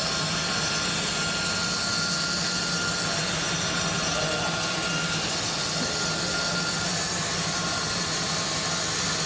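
A digital CNC knife cutting machine for composite fiber cloth running: a steady mechanical hum and hiss that holds an even level throughout, with a few faint steady tones above it.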